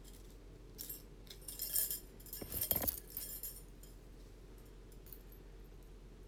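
Small metal jewelry clinking and jingling in a few short bursts as it is handled close to the microphone, the loudest about two and a half seconds in; then faint room tone.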